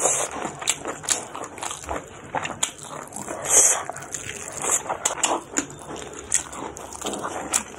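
Close-up wet chewing and lip-smacking of a mouthful of pork and rice, eaten by hand, with irregular mouth clicks and smacks throughout and a brief sucking hiss about halfway through.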